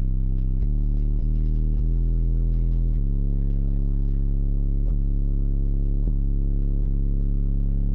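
Rap song's deep bass line played loud through two 18-inch subwoofers in a plywood wall, heard inside the vehicle. The low notes are held about a second each and shift in pitch, with a steady ticking beat over them.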